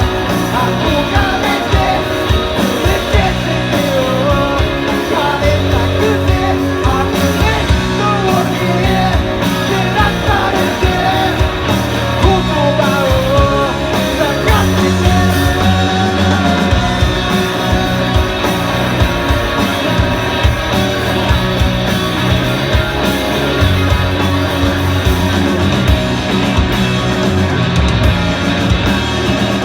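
Rock band playing an instrumental passage of a song: electric guitars over a steady drum beat.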